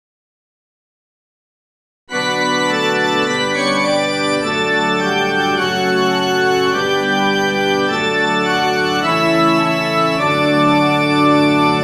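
Organ playing sustained chords that change every second or so, starting abruptly about two seconds in after silence.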